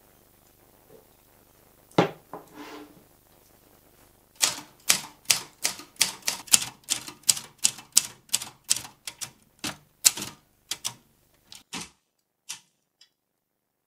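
Portable typewriter being typed on: a run of sharp key strikes at about three a second for some seven seconds, then stopping. A single sharp knock comes about two seconds in, before the typing.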